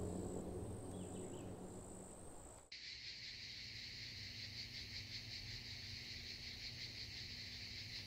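A low, steady drone inside a car cabin for the first few seconds. About three seconds in it gives way abruptly to a steady, fast-pulsing chirring of insects over a faint low hum.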